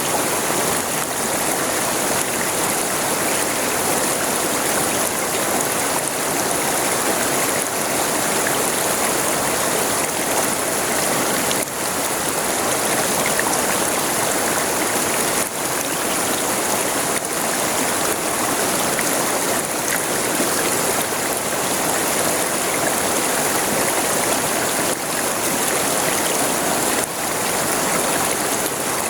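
River water flowing and splashing over stones, a steady rushing hiss.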